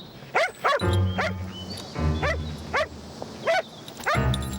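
Dog barking repeatedly, about six or seven short barks, over background music.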